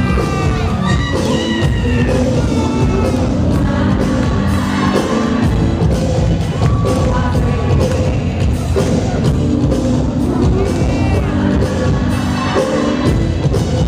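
Live freestyle dance-pop performed in concert: a female lead singer over a steady electronic drum beat.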